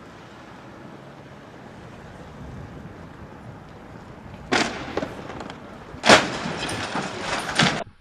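Motorcycle moving slowly with a low, steady engine sound, then loud harsh noise: a short burst about four and a half seconds in and a longer, louder stretch from about six seconds that cuts off abruptly near the end.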